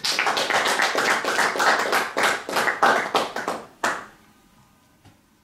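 A small audience applauding, the clapping stopping about four seconds in.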